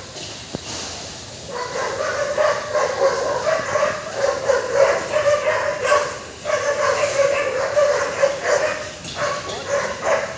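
Dogs barking and whining in quick repeated high-pitched calls, starting about a second and a half in with two brief pauses.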